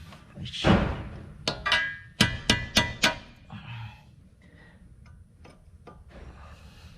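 Metal tool striking metal about six times in quick, uneven succession, each a sharp clink with a short ring, after a brief scraping rasp. This is the work of getting a rusted, broken ABS sensor out of its bore in the wheel hub.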